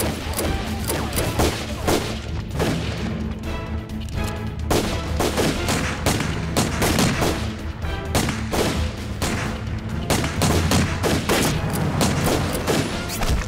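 Gunfire in a staged firefight: many shots in quick succession throughout, over background music with sustained low notes.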